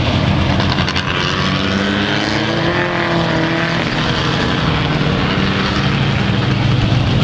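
Several mini stock race car engines running hard as the cars race past, their pitch rising and falling as the cars go by.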